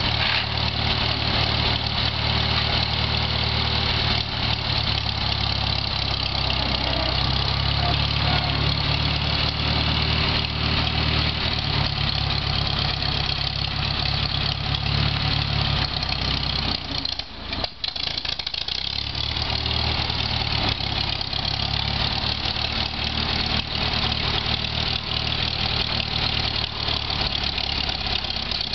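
1948 McCormick-Deering W-6 tractor's four-cylinder engine running steadily. Its pitch shifts slightly about a quarter of the way in, and it dips briefly a little past the middle before carrying on.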